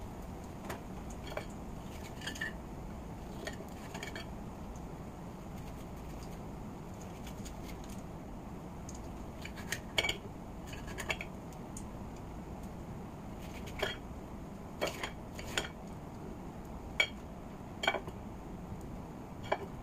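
A kitchen knife clicking against a ceramic plate as green bell pepper is sliced on it. The clicks are sharp, scattered and irregular, and come more often in the second half.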